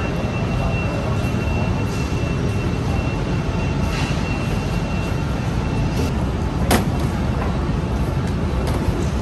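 Steady low rumble of a moving vehicle heard from inside, with a thin high whine for the first few seconds and a couple of light clicks.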